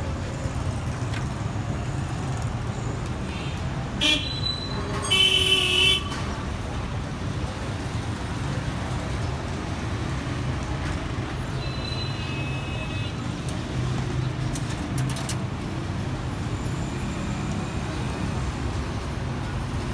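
Steady street traffic hum with vehicle horns: a loud horn blast about five seconds in and a fainter honk around twelve seconds in.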